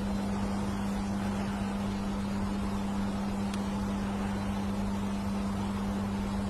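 Steady mechanical hum holding one constant pitch over a low rumble, like an engine or motor running nearby.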